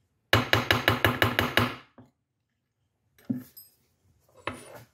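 Hammer tapping a bent steel push rod straight on a granite surface: about nine quick, even taps in under two seconds, then two lighter knocks. The rod was bent when the valve guide pushed out of the head and the valvetrain bound up.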